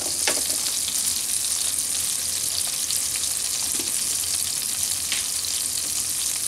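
Olive oil sizzling in a pan around chopped garlic, red pepper flakes and a melting pat of butter, a steady even hiss as the sauce base cooks.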